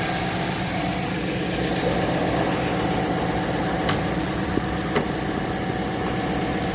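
Mazda CX-5's gasoline four-cylinder engine idling roughly and shaking, misfiring on cylinder 3 because its ignition coil wire harness is cut. A couple of faint clicks about four and five seconds in.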